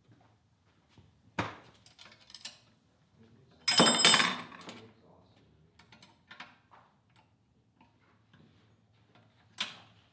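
Metal hand tools and a wrench clinking and clattering on a workbench: scattered sharp clicks, a loud ringing metal clatter about four seconds in, and another click near the end.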